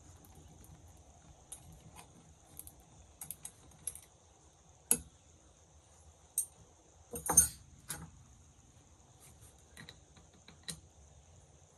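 Scattered light clicks and knocks, like tools or gear being handled, with a louder clatter about seven seconds in, over a steady high-pitched drone.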